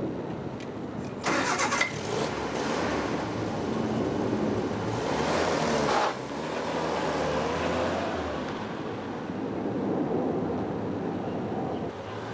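MG Midget convertible's four-cylinder engine being cranked and catching about a second in, then running, with a louder burst around five to six seconds in, as the car pulls away.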